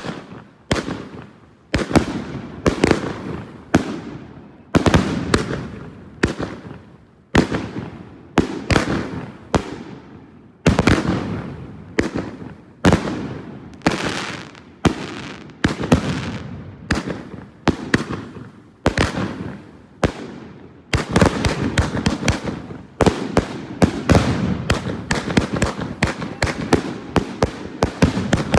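66-shot consumer firework cake firing shot after shot, each a sharp bang trailing off in a fading crackle. About three quarters of the way through, the shots come faster and overlap.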